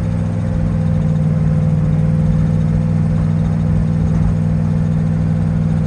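Twin-turbo race car's engine droning steadily at a light cruise of about 2,400 rpm, off boost, heard from inside the car.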